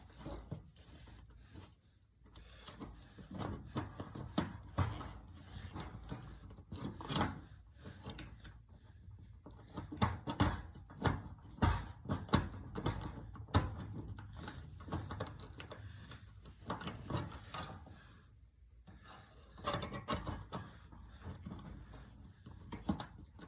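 Handling noise: scattered, irregular clicks, knocks and light rattles of parts and tools being worked by hand, with a few louder knocks.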